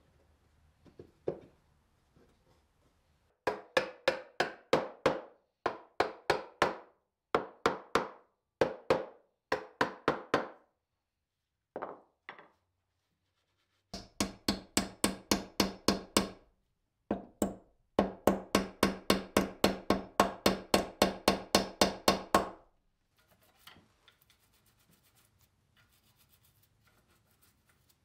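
Hammer striking in quick runs of about four blows a second, driving wooden wedges into the leg tenons through a wooden stool seat. The runs stop and start several times, with a pause of about three seconds in the middle, and the hammering ends a few seconds before the end.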